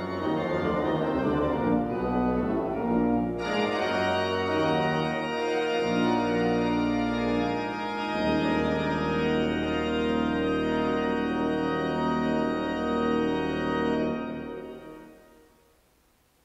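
Baroque pipe organ, the 1728 Johan Niclas Cahman organ, playing a piece in several moving voices; about eight seconds in it settles on a long held chord over a low pedal note, which dies away near the end.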